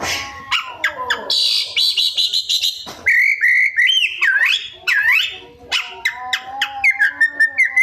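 Oriental magpie-robin (kacer) singing a varied mimicking song: a harsh rasping passage, then swooping whistles, then a quick run of short clipped notes near the end.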